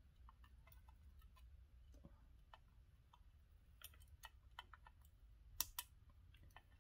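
Faint crackling of flux spitting as a soldering iron melts lead-free solder into through-hole joints: scattered small clicks, with two sharper ones close together about five and a half seconds in, over a low background hum.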